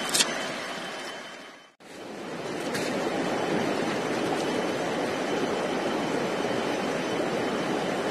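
Steady rush of flowing river water. There is a short click at the very start, and the sound drops out briefly about two seconds in.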